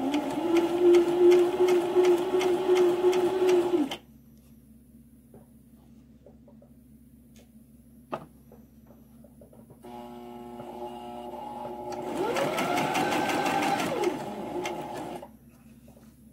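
Brother XM2701 electric sewing machine stitching a fabric hem. It runs steadily for about four seconds and stops abruptly. After a pause with a single click, it starts slowly, speeds up with a rising whine, then slows and stops.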